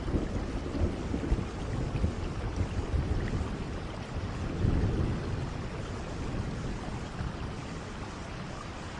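Steady rain falling, with thunder rumbling low underneath, swelling most about halfway through.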